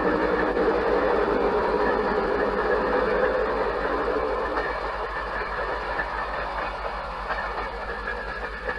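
Diesel-hauled commuter train of double-deck cars moving away: the CP Rail cab-unit locomotive's engine hum and the running noise of the cars on the rails fade steadily as the train recedes, the engine tone dying away about halfway through.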